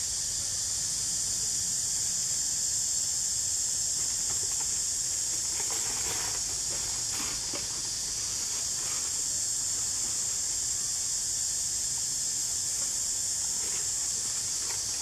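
Steady high-pitched droning hiss of insects, unbroken throughout. A few faint rustles and clicks come around six to eight seconds in.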